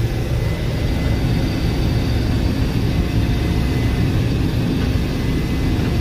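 Case IH 1680 combine running under load while threshing canola, heard from inside the cab: a steady low engine and machinery drone with a faint, even high whine over it.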